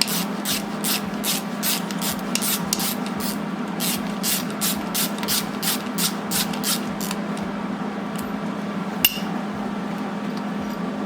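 Rhythmic rasping metal strokes from hand-tool work on a stuck, rusted cylinder-head bolt, about three a second, stopping about seven seconds in, over a steady low hum. One sharp click about nine seconds in.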